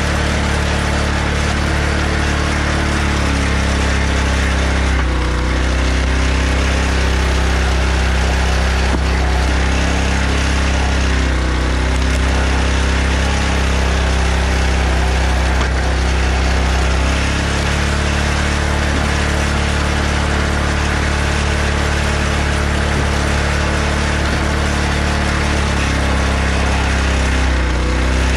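Engine of a hydraulic log splitter running steadily. Its note shifts for a stretch in the middle, from about five to seventeen seconds in, then settles back.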